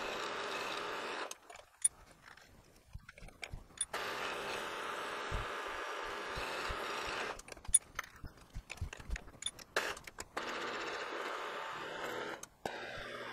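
Benchtop milling machine's spindle running as a drill bores the tap hole for a 1/4-20 screw into a block in the vise. It runs steadily in three stretches of a second or three each, with quieter gaps of scattered clicks between.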